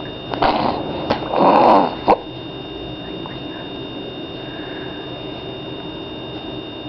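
A resting baby's snoring breaths: two noisy snorts in the first two seconds, the second louder and longer, followed by a short click, then only a steady background hum with a faint high whine.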